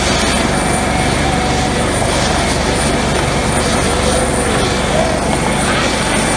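Coast Guard MH-65 Dolphin helicopter running on the ground, its twin turboshaft engines and main rotor turning steadily, with a steady high whine over the rotor noise.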